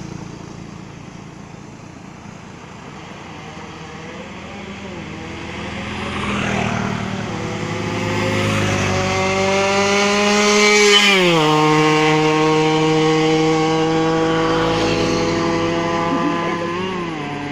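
Yamaha RX-King single-cylinder two-stroke motorcycle with an under-belly exhaust accelerating hard. It starts quieter, then its engine note climbs steadily for several seconds and drops sharply at its loudest, about eleven seconds in. It then holds a lower, slowly falling note and dips again near the end.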